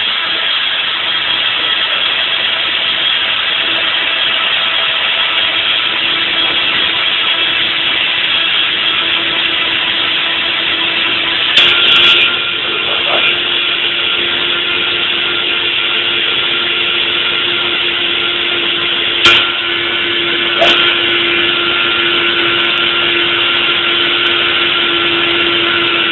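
Countertop blender running steadily at full speed, blending a tomato mixture into ketchup, with a steady hum under the whirring and a few brief knocks partway through.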